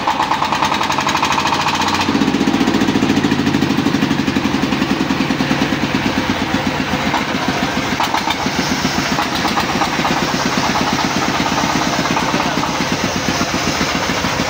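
Single-cylinder diesel engine running steadily with a fast, even thumping beat, belt-driving a service pump. The beat gets heavier and fuller about two seconds in.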